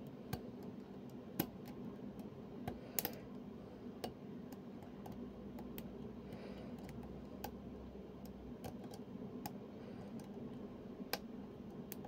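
Irregular small metallic clicks and ticks of a lock pick and tension wrench working the pins inside a 6-pin euro profile cylinder lock, with a few sharper, louder clicks among them.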